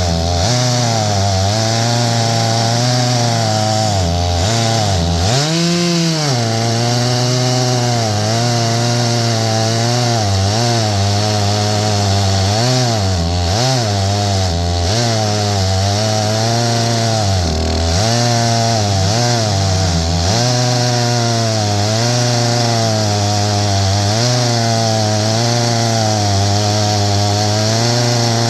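Stihl MS661 chainsaw on an Alaskan mill with a 36-inch bar, ripping along a pine log under load. The engine runs steadily, its pitch wavering up and down as the load changes, with a brief rise and fall about five to six seconds in.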